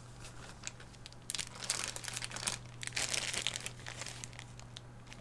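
Plastic kit parts bag crinkling as it is handled, in two bouts of crackling, one starting just over a second in and another around three seconds in, over a low steady hum.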